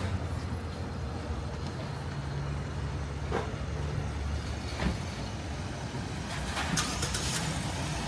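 Street traffic: a large vehicle's engine running with a low steady rumble, and a short burst of hiss about six and a half seconds in.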